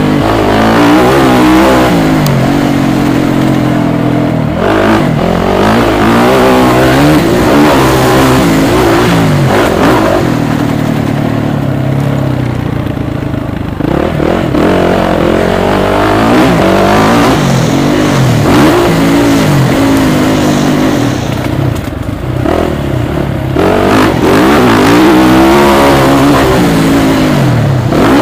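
Motocross motorcycle engine heard from on board while riding a dirt track, revving up and down in repeated rising and falling sweeps as the rider works the throttle and gears. The throttle eases off briefly a little before halfway and again about three-quarters through.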